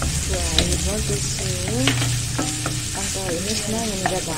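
Pork slices sizzling in hot oil in a non-stick frying pan as they are stirred with a wooden utensil, with a few sharp taps against the pan. Wavering squeaky tones rise and fall throughout.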